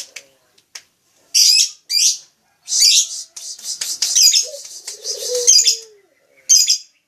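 Lovebird giving repeated short bursts of shrill, chattering calls, about six with gaps between them, and a quieter lower note falling in pitch about two-thirds through.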